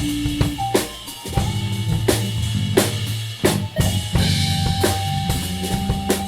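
A live band playing without vocals, led by a drum kit with bass-drum and snare hits. Low bass notes move under the drums, and a higher note is held for a couple of seconds near the end.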